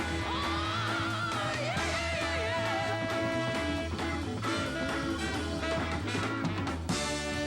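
Rock-soul band music with guitar and drums, a melody line bending up and down and then held on one note for about two seconds.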